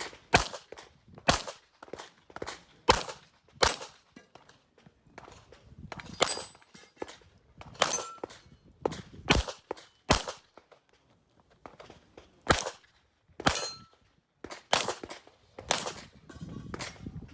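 Handgun shots fired during a practical shooting course of fire: about fifteen sharp reports in short irregular groups, with pauses of a second or two between them.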